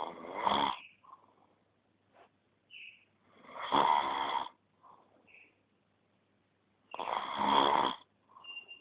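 Loud snoring: three long rattling snores about three seconds apart, with softer breaths and a brief whistle between them.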